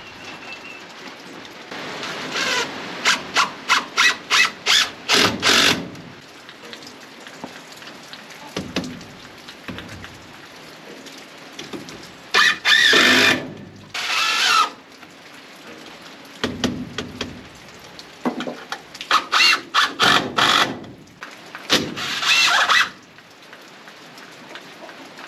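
Cordless drill-driver driving screws into wooden framing in bursts: stuttering runs of short pulses a few seconds in and again past the middle, and longer whirring runs with a wavering pitch around the middle and near the end.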